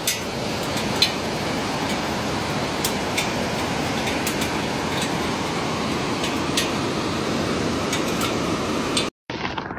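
Steady rushing noise of fast-flowing floodwater through streets, with a few faint sharp ticks. It cuts off abruptly just after nine seconds and returns thinner and muffled.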